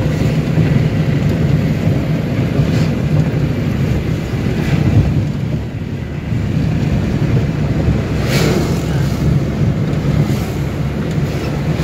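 Steady low drone of road and engine noise inside a moving car's cabin, with wind buffeting the microphone and a brief louder hiss about eight seconds in.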